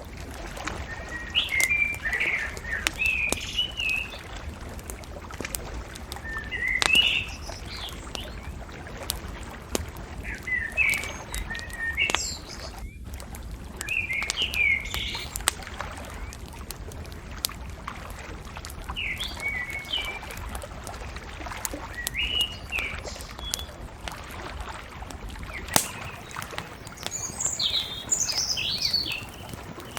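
Songbirds chirping in short repeated phrases every few seconds, over the occasional sharp pop and crackle of a bonfire and a steady background hiss.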